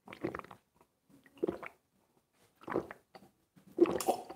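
A man gulping a drink from a small glass: four swallows about a second and a quarter apart, the last the loudest.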